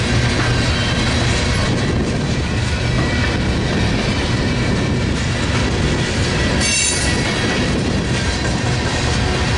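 Freight train cars rolling past: a steady rumble of wheels on rail with faint high wheel squeal, and a brief sharper squeal about seven seconds in.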